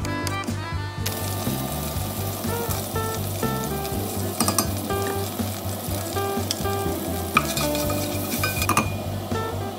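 Minced garlic sizzling as it fries in hot oil in a pot, starting about a second in, with a spatula stirring and tapping against the pot a couple of times. Background music plays underneath.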